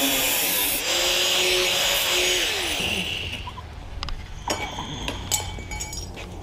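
Angle grinder with a cut-off wheel cutting 16-gauge sheet steel, its pitch dipping and recovering as the wheel loads up in the cut. About three seconds in it is switched off and winds down, followed by light metallic clinks as the tool and metal are handled.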